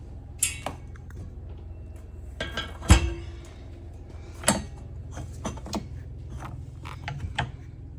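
Scattered sharp clicks and knocks, the loudest a heavy thump about three seconds in, over a steady low hum.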